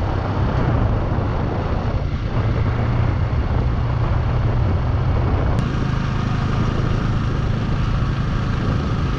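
Motorcycle engine running steadily at cruising speed, with wind and road rush over the microphone while riding, and a single click about five and a half seconds in.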